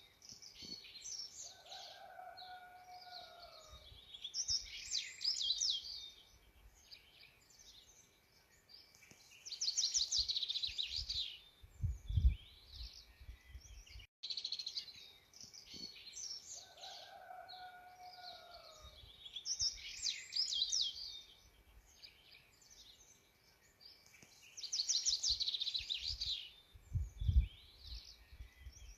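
Several wild birds singing and chirping in quick, high trills, with a lower gliding whistle early on. There are brief low rumbles like wind bumps on the microphone. The same stretch of birdsong repeats about halfway through.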